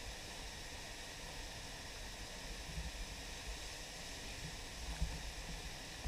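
Steady rushing of the Misol-Ha waterfall's single plunge into its pool, with a few low thumps, the sharpest about five seconds in.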